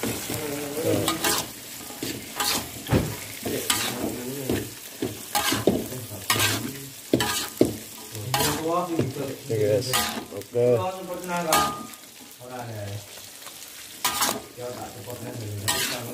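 Metal spatula scraping and knocking against a wok as green beans and tofu are stir-fried, with an irregular stroke every second or so over a steady sizzle.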